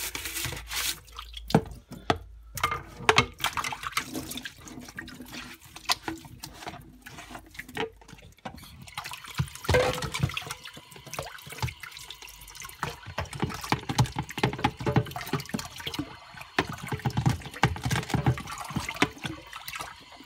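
Water splashing and dripping as plastic Dyson vacuum cleaner parts are washed by hand, with irregular knocks of plastic against plastic.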